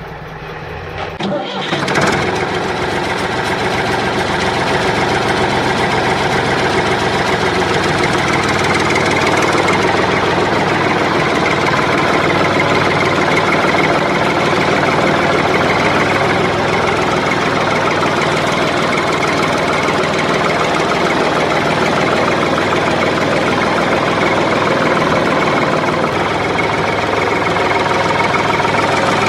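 An engine starts up about two seconds in and then runs steadily with a fast, even pulse.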